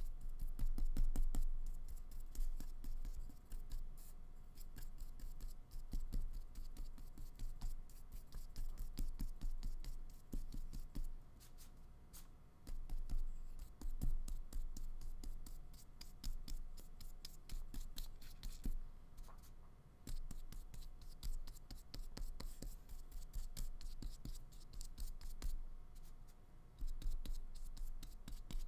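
Paintbrush laying acrylic paint onto paper in many quick, short strokes: a dense run of soft scratchy brushing with a few brief pauses.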